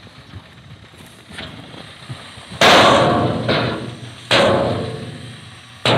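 Tipper truck dumping soil from its raised body: three sudden loud crashes about a second and a half apart, each fading over a second.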